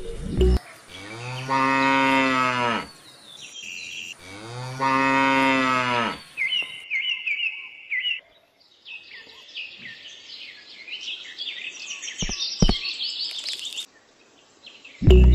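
A cow mooing twice, each moo a long call that rises and falls in pitch, followed by several seconds of birds chirping and twittering.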